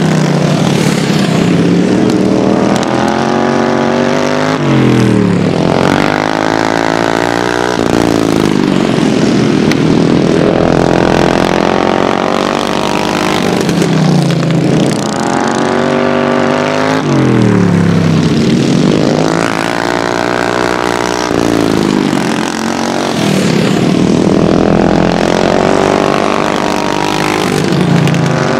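Racing lawnmower engines running hard around a dirt oval. Several engines are heard at once, their pitch climbing and then falling back about every five to six seconds as the mowers accelerate and back off through the laps.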